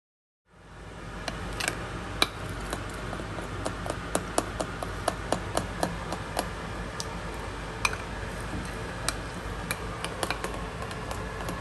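A fork clinking against a glass bowl while stirring thick batter: light, irregular clinks a few times a second over a steady low hum.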